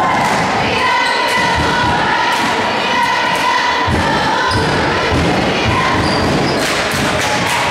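Basketball dribbled on a hardwood gym floor: a run of bounces heard over the noise of the gym.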